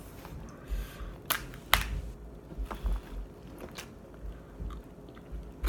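Boiled crab leg shell being cracked and pulled apart by hand: two sharp cracks about a second and a half in, among quieter scattered clicks.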